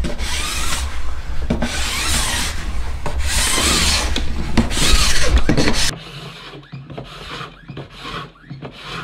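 A steel ski edge being sharpened by hand, with rasping strokes of an edge tool drawn along it about once a second. After about six seconds the strokes become quieter and shorter.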